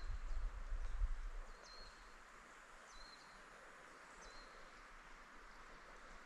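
A bird repeating a short, high call about every second and a half over a faint, steady outdoor hiss. Wind rumbles on the microphone for the first second and a half.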